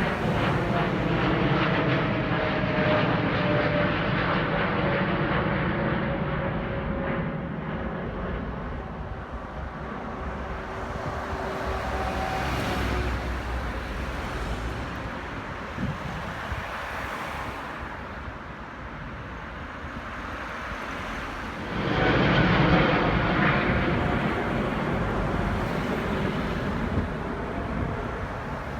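Jet airliner taking off, its engines running with a slowly falling whine as the noise eases away. About 22 seconds in, the sound switches abruptly to the louder takeoff of an Airbus A380, a four-engine airliner.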